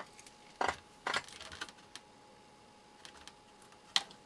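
A handful of light clicks and taps from a small hand tool and fingers working the latch of a board-to-cable connector on a circuit board, with one sharper click near the end.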